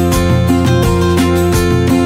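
Background music with guitar, playing loudly and continuously.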